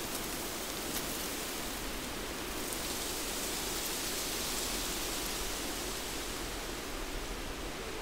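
Wind blowing through forest trees, a steady rustling hiss of leaves and branches that swells a little in the middle.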